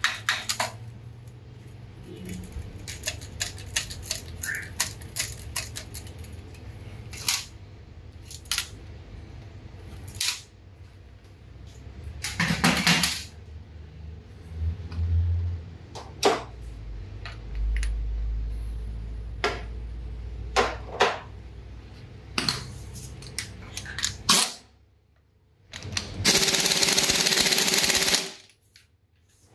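Metal clinks and knocks of a clutch pressure plate and disc being worked off the flywheel, with a quick run of ticks at the start. Near the end a pneumatic impact wrench runs for about two seconds on the flywheel bolts, the loudest sound.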